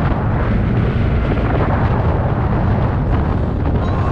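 Loud, steady wind buffeting on the microphone while riding a TVS Ntorq Race XP scooter at about 70 km/h, with a deep rumble and no distinct events.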